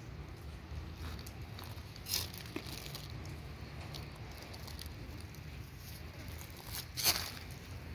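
Dry leaves and gravel crunching and crackling in a few short bursts, the loudest about seven seconds in, over a low steady rumble.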